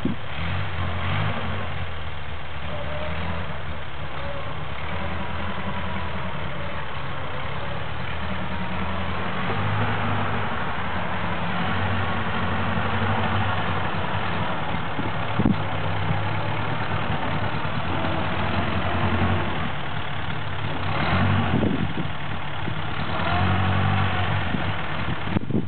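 Old Ford car engine of an EPA tractor (a car converted into a low-speed tractor) running steadily while driving, its note shifting about a third of the way in. A few brief knocks or rattles come through near the middle and later.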